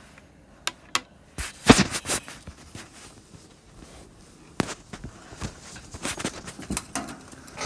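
Scattered knocks, clicks and rustling from a handheld phone being moved about and a person shifting on their feet. The loudest is a knock a little under two seconds in.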